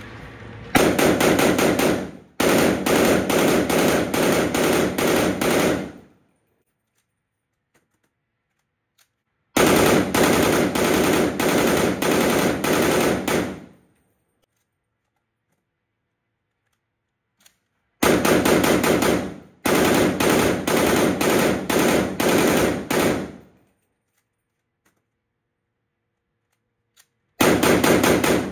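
POF CW39 rifle firing long full-automatic bursts of a few seconds each, with pauses of a few seconds between them.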